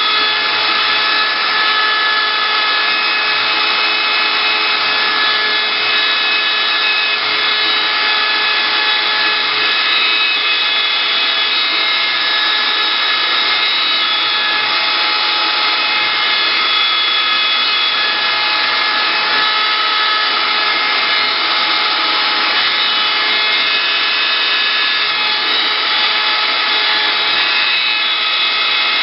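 CNC wood-carving router running steadily, its spindle giving a constant high whine over the noise of the bit cutting wood.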